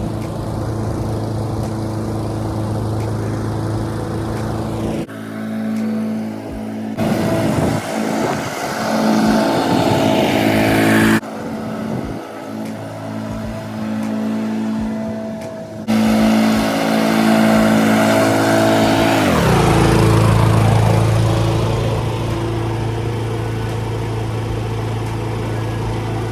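Honda twin-blade push mower's petrol engine running steadily while mowing, its pitch dropping briefly about two-thirds of the way through.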